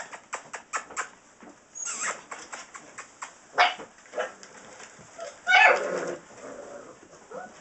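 Saint Bernard puppies, about six weeks old, giving short whines and yips, with light scratching and tapping of paws against a wooden box. The loudest is one short puppy call about five and a half seconds in.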